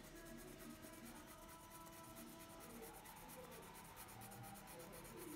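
Coloured pencil scratching faintly on paper in quick, even back-and-forth strokes as an area is shaded in.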